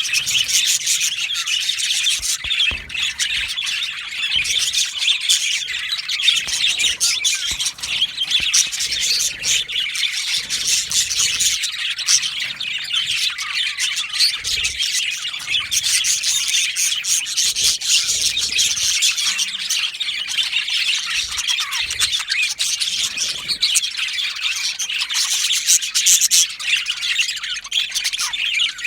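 A flock of budgerigars chattering and chirping continuously, many birds calling over one another in a dense warble with squawks mixed in.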